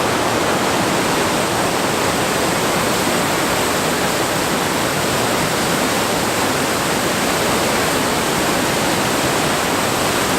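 Waterfall in heavy flow, its rushing water loud and steady.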